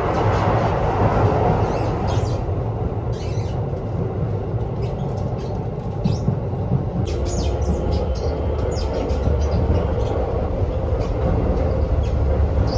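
Electric commuter train running, heard from inside the carriage: a steady low rumble of wheels on rails with scattered short high clicks and squeaks. The rumble grows heavier about halfway through, when the train is out on a river bridge.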